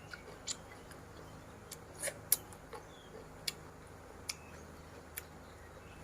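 Sparse, sharp crunches and mouth clicks of someone chewing crunchy squid and crisp vegetables from a seafood papaya salad, about seven in six seconds, the loudest about two seconds in.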